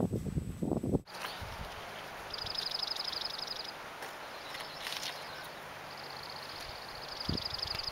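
Outdoor ambience with a soft steady hiss and a small bird's high, rapid trill, sung three times for a second or two each. Over about the first second, low gusting wind rumbles on the microphone before a sudden cut, and a low knock comes near the end.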